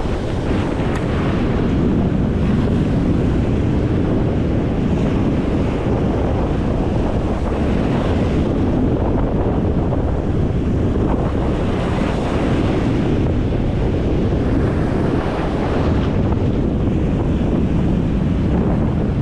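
Strong wind buffeting the microphone over breaking ocean surf, a steady loud rush that swells and eases every few seconds.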